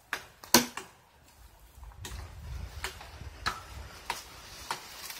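A string of about seven sharp knocks and snaps at irregular spacing, the first two the loudest, with a low rumble through the middle.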